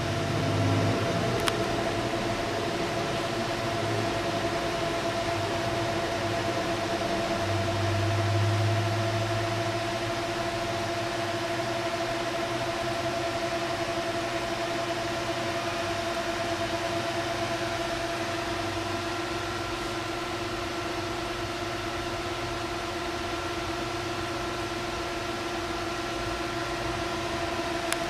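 Four Delta AFB1212SH 120 mm fans running at full speed (up to 3400 rpm) on a radiator: a steady rush of air with a steady whine of tones on top, quite noisy. A low hum swells briefly about eight seconds in.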